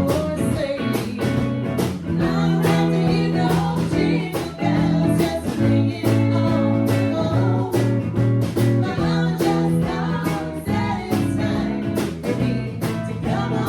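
A song: singing over guitar, with a steady drum beat.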